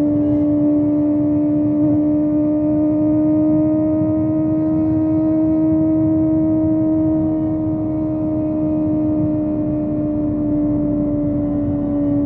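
Kawasaki ZX25R's inline-four engine through a Yoshimura exhaust, running at steady high revs while cruising, its pitch rising slightly and then easing back, over wind and road rumble.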